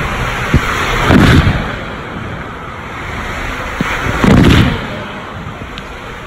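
Water rushing and splashing in an enclosed tube water slide as a rider slides down, heard close up, with two louder rushing surges about a second in and just after four seconds.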